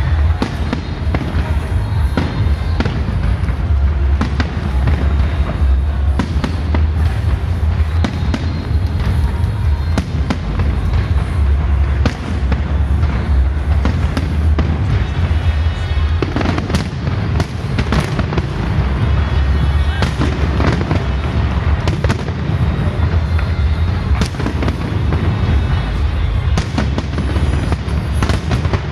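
Fireworks display going off in rapid succession: many sharp bangs and crackles over a continuous deep rumble, with music playing underneath.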